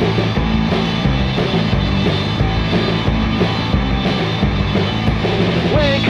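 Instrumental passage of a rock song played by a full band, with no singing.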